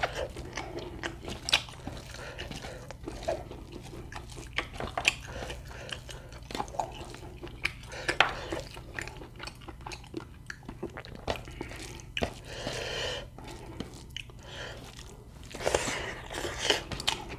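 A person chewing meat close to the microphone: irregular wet mouth clicks and crunches.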